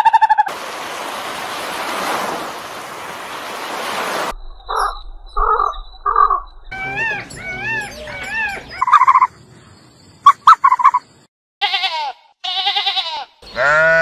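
A few seconds of hiss, then a string of short animal calls: bird calls, some wavering up and down in pitch, and near the end a sheep bleating.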